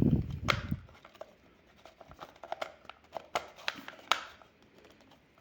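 A low rumbling bump of handling in the first second, then scattered light clicks and taps of the plastic parts of a small Wi-Fi security camera being fitted back together by hand.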